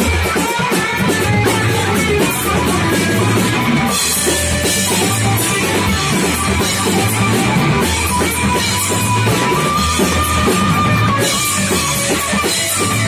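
Live rock band playing loud and steady: a Les Paul-style electric guitar over a drum kit, with no singing.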